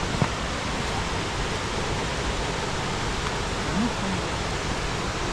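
Steady rush of falling water from a mountain waterfall, an even, unbroken noise.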